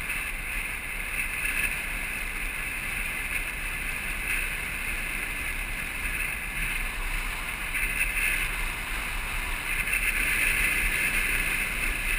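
Steady rush of wind and rolling noise from a land yacht sailing fast across a hard dry lakebed, heard from a camera mounted on its frame. It gets somewhat louder from about eight seconds in.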